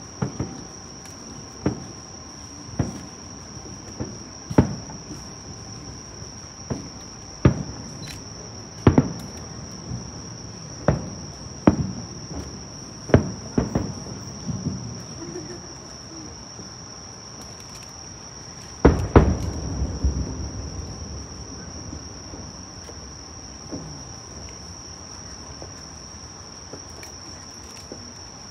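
Aerial fireworks shells bursting as sharp booms every second or two, each trailing off in a low rumble, with a heavier volley of bursts about two-thirds of the way through. A steady high-pitched insect chirring runs underneath.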